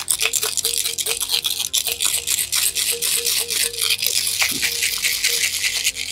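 A bicycle chain rattling inside a glass mason jar of mineral spirits as the jar is shaken hard, the metal links clattering against the glass in rapid rhythm, about eight to ten a second, to agitate the grease off the chain. The rattling breaks off briefly near the end.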